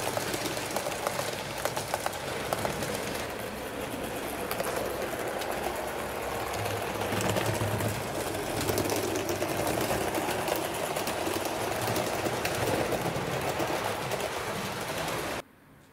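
HO scale model train running on its track: a steady small-motor whir with a dense run of fine clicks from the wheels on the rails. It cuts off suddenly near the end.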